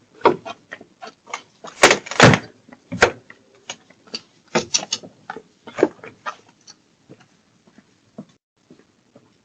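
A door being tried and forced, heard through a doorbell camera's microphone: a string of irregular knocks and clunks, loudest about two seconds in, thinning out toward the end.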